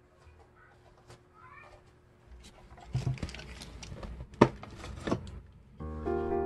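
Objects being handled on a shelf around a wooden book stand: a run of knocks and clatters, the sharpest about four seconds in. Faint high calls are heard in the first two seconds, and gentle piano music comes in near the end.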